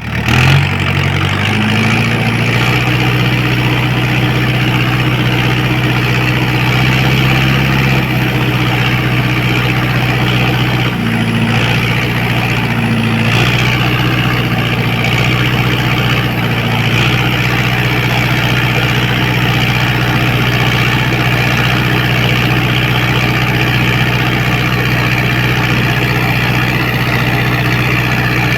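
John Deere 5078 tractor's diesel engine running loud through a straight-through exhaust with no muffler, with a deep rumble. It idles with a few small rises in revs in the first half, then holds a steady idle.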